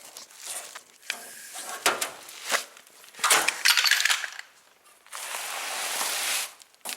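Metal clinks and knocks as a car's underbody panel and its fasteners are handled, with a longer scraping slide for about a second and a half in the second half.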